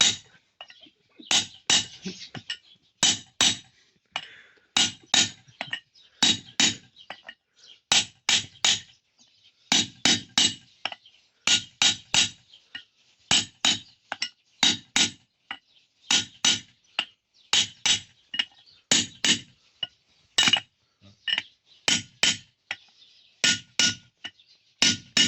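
Repeated bursts of sharp metallic clinking: three or four clinks in quick succession, recurring about every second and a half in a steady rhythm.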